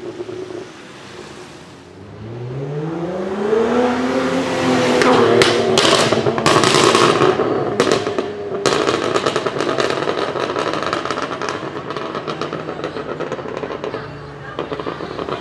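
Tuned BMW 1M's twin-turbo straight-six revving up over a couple of seconds, then a string of loud exhaust bangs about five to nine seconds in, followed by rapid machine-gun-like crackling and popping as it keeps running. The backfires come from the tune and exhaust and sound like a rally car's anti-lag.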